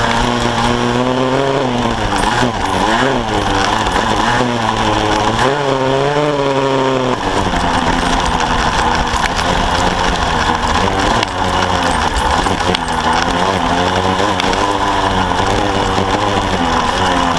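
Kawasaki KSR-II's 80cc two-stroke single-cylinder engine on the move on a dirt trail, revving up and down repeatedly for the first several seconds, then running at a steadier, lower pitch.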